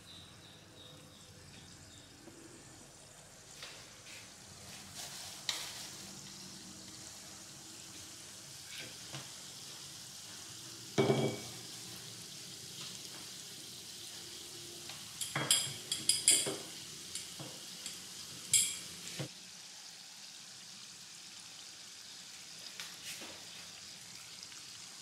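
Stuffed bread buns (bánh bao) deep-frying in a small saucepan of hot oil: a steady sizzle of bubbling oil. There is a sharp knock about eleven seconds in and a cluster of clinks a few seconds later.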